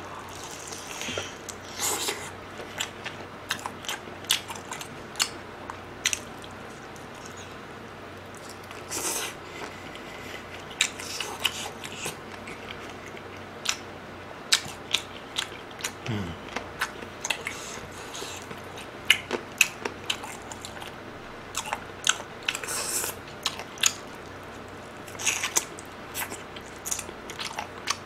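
Close-miked chewing and biting of sauced fried chicken: irregular wet crunches, smacks and mouth clicks as the meat is torn from a drumstick.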